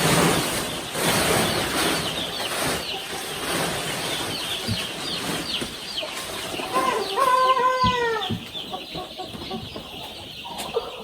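Young chickens peeping in a dense stream of short, high chirps, with one louder, drawn-out squawk about seven seconds in. A burst of rustling noise comes in the first few seconds.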